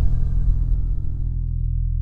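Intro music ending on a held, bass-heavy chord that rings out and fades away.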